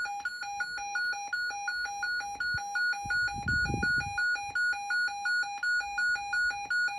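Electronic two-tone alert signal, alternating evenly between a low and a high pitch about three times a second.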